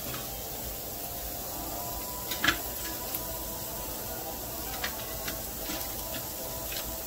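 Diced onions sizzling gently in oil in a nonstick frying pan: a steady hiss with a few small pops and clicks, the sharpest about two and a half seconds in.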